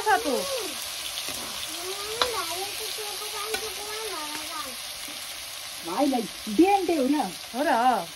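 Diced potatoes sizzling as they fry in an iron wok over a wood fire, a steady hiss, with a steel ladle stirring them near the start. A voice-like sound with a rising and falling pitch cuts in several times and is loudest in a few quick calls near the end.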